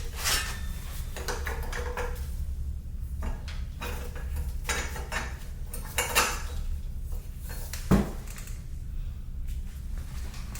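Metal tools and motorcycle parts clinking and clanking in a run of irregular knocks, with one heavier knock about eight seconds in.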